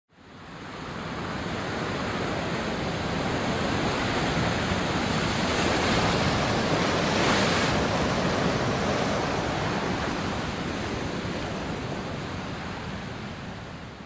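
A steady rushing noise, like surf or wind, spread across all pitches. It fades in at the start, swells a little in the middle and slowly fades out near the end.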